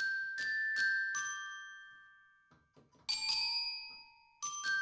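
Sampled glockenspiel from the EastWest Play sampler, played on a MIDI keyboard. Four quick ringing notes come first, then a chord about three seconds in, and more notes near the end, each ringing out and fading slowly.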